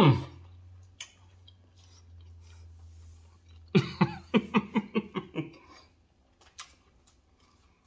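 A man eating steak and voicing approval: a drawn-out falling "mmm" at the start, faint mouth clicks of chewing, then a quick run of about seven short hums about four seconds in.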